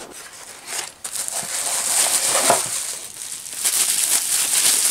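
Plastic bubble wrap crinkling and crackling as a wrapped item is handled and pulled out of a cardboard box, growing louder near the end.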